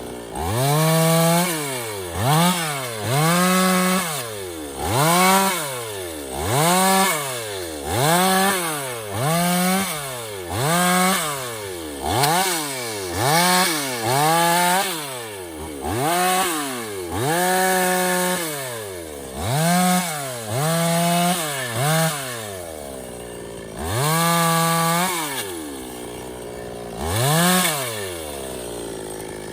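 Stihl two-stroke petrol chainsaw revved over and over, its engine pitch rising sharply and dropping back each time, roughly once every one to two seconds, with a slightly longer gap near the end.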